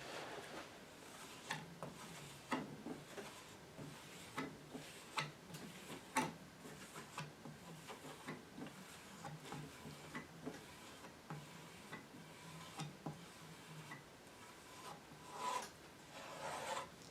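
Faint rubbing of a polishing pad over a wooden surface during French polishing, with scattered light clicks and taps and a brief rustle near the end.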